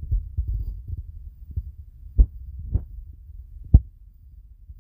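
Low rumble with irregular soft thumps on the phone's microphone, the noise of wind or handling, with three louder thumps about two, nearly three and nearly four seconds in.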